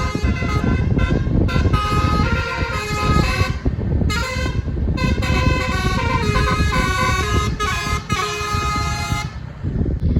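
A tour bus's telolet basuri multi-tone air horn playing a melody of stepped notes over a low rumble.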